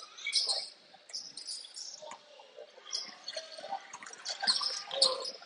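Basketball shoes squeaking on the court over and over as players cut and stop, with faint voices in the background.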